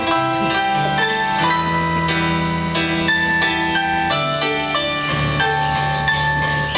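Slow instrumental piano music: chords and single notes struck one after another over long held bass notes, with no singing.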